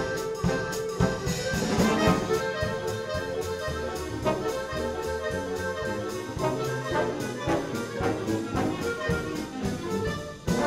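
Symphonic wind band with a large clarinet ensemble playing, clarinets and brass together over regular sharp percussion strokes.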